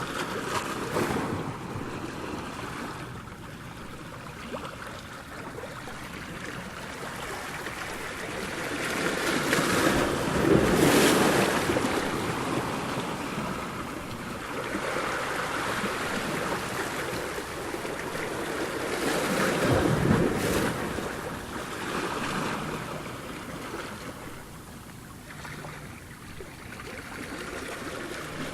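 Ocean surf: waves washing in and breaking as a steady rushing noise, swelling loudest about ten seconds in and again about twenty seconds in.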